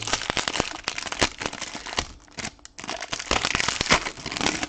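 Crinkling and crackling of trading card pack wrappers being handled and opened, with many small clicks and a short lull about two seconds in.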